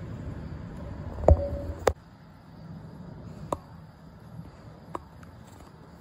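Handling noise from a smartphone filming through a clip-on telephoto lens: sharp clicks and knocks, the loudest two about a second and a half in, over a low rumble that cuts off suddenly about two seconds in.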